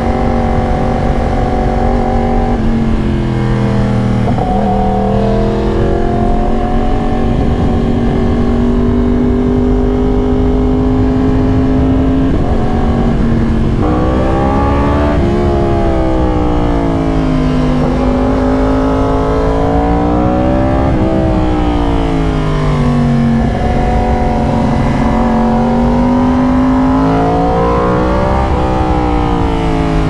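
2022 Yamaha R1's crossplane inline-four running through a raw SC-Project exhaust, heard from the rider's seat under way. The engine note holds fairly steady for about the first half, then rises and falls three times as the throttle is opened and closed.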